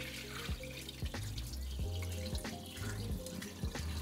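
Water splashing and pouring at a kitchen sink as cubed salmon is rinsed in a stainless steel bowl and the cloudy rinse water is tipped out into the sink. Background music with a deep bass line plays underneath.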